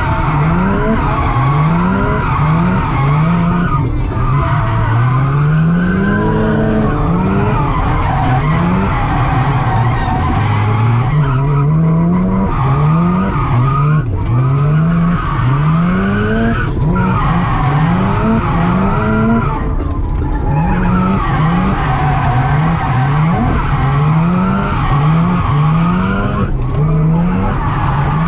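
Mazda RX-7 FC's turbocharged 13B rotary engine being revved hard through a drift run, the pitch climbing and falling back over and over every second or two, with tyres skidding.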